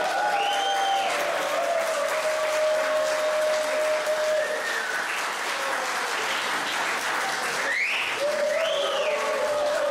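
Audience applauding, with voices cheering over the clapping.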